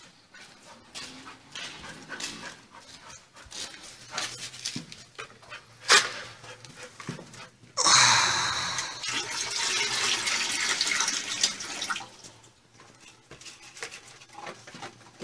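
Water poured from a plastic bucket into a dog's bowl, a steady rush lasting about four seconds that starts about eight seconds in. A sharp knock comes about two seconds before it, and small scattered clicks come before and after it.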